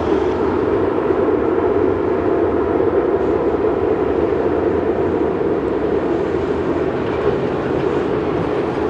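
Jet airliner's engines running at takeoff thrust on its takeoff roll or climb-out, a loud, steady roar.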